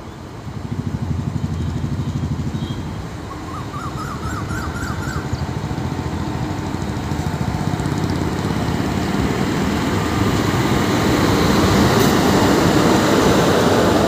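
Passenger train hauled by a WAP-4 electric locomotive approaching slowly and passing close by. A low pulsing rumble grows steadily louder as the locomotive and then the coaches roll past.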